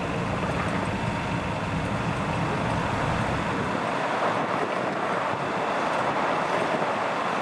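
Steady vehicle noise with a low rumble that drops away about halfway through, while the higher noise carries on.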